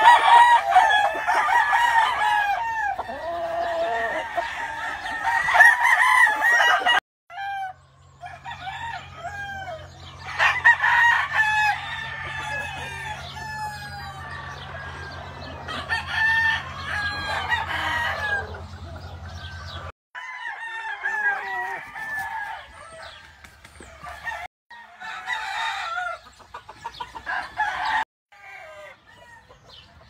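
Many gamefowl roosters crowing over one another, the calls breaking off abruptly several times. A steady low hum runs under the crowing through the middle stretch.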